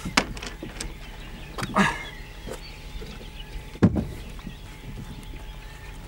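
Handling knocks and thumps in a small open boat as a large wels catfish is shifted and lifted off the floor. There are a couple of lighter knocks early, then one heavy thump about four seconds in.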